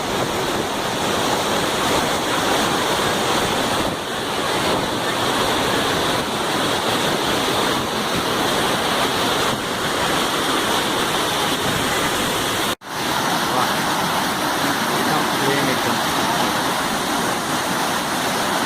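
Water pouring over a dam spillway: a steady, loud rush. It cuts out for a split second about two-thirds of the way through.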